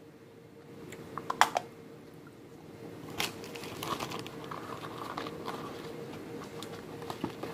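Hard plastic toy being handled: a couple of sharp clicks about a second and a half in and another about three seconds in, followed by crinkling of clear plastic packaging bags with small clicks and ticks.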